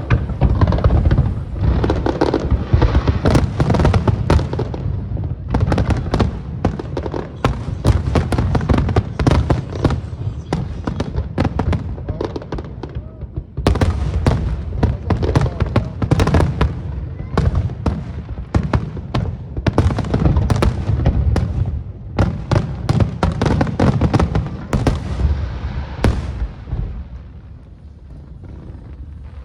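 Aerial fireworks shells bursting in rapid, dense volleys of bangs, with a brief lull about halfway through and dying down near the end.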